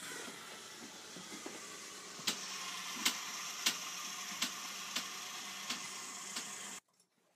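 Screwdriver working screws out of a wooden canoe's gunwale: sharp clicks about every two-thirds of a second over a steady hiss and low hum. All of it cuts off abruptly near the end.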